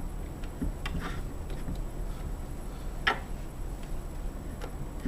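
Scattered light clicks and taps of screws and small lock parts being handled, with one sharper click about three seconds in.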